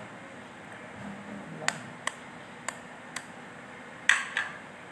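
Light clicks of eggs and a spoon against a ceramic plate, then two sharper knocks about four seconds in as an egg is tapped to crack it.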